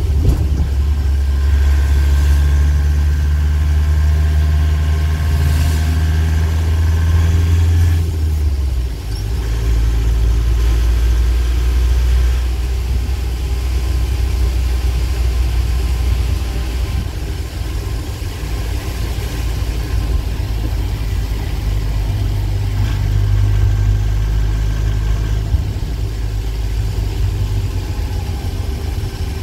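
Engine and tyre noise heard inside the cab of a vehicle driving on a wet road: a steady low engine drone whose note drops about eight or nine seconds in, then holds.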